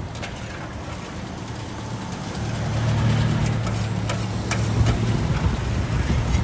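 A motor vehicle's engine running nearby, a low hum that grows louder about halfway through and then eases off, with a few sharp clicks over it.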